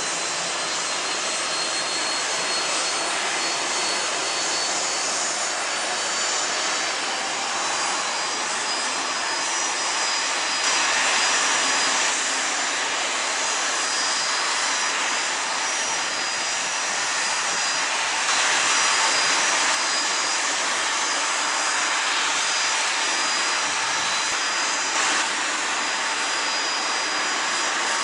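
Canadair CRJ-200's General Electric CF34 turbofan engines running steadily on the ramp: constant jet noise with thin, high whining tones over it, getting slightly louder twice.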